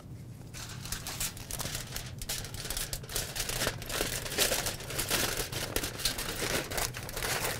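Heavy-duty aluminum foil crinkling as a sheet is handled and folded, a steady dense crackle of small clicks starting about half a second in.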